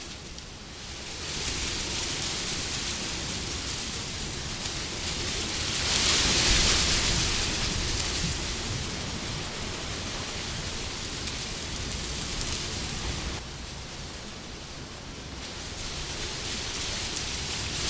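Wind blowing in gusts as a steady rushing hiss that swells to its strongest about six seconds in, eases, dips lower about three-quarters of the way through, then builds again.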